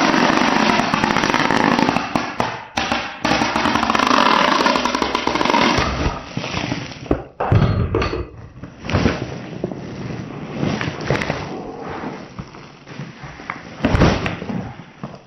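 Packing materials being handled: several seconds of loud, dense crackling rustle, then quieter rustling with scattered knocks and a couple of heavier thumps.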